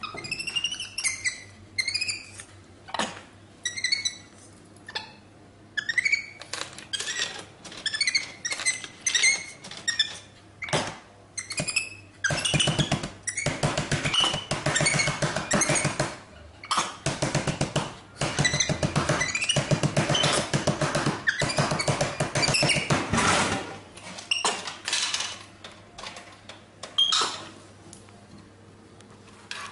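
Capuchin monkey giving short, high, squeaky chirps that fall in pitch, mixed with sharp clicks and knocks. About halfway through comes a louder, dense stretch of mixed noise lasting some twelve seconds.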